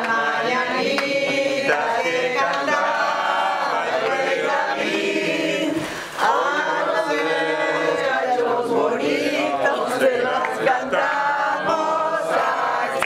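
A small group of men and women singing together without instruments, with a brief pause about six seconds in.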